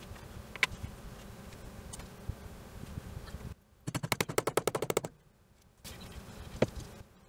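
Hammer tapping a snap-setting tool to set a metal snap in leather: a rapid run of about fifteen light, evenly spaced strikes lasting just over a second, about halfway in. A single sharp click comes a little before and again after it.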